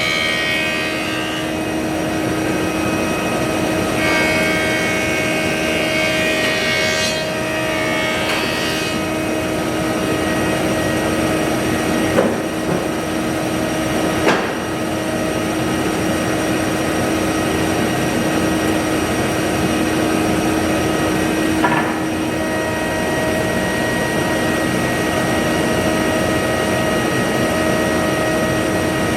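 Woodshop machinery running steadily with a constant drone, with a few short knocks of work along the way.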